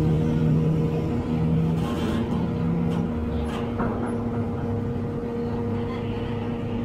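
Steady hum of idling diesel engines at a ferry's open bow ramp, a low rumble with a constant drone. A few light knocks sound through it.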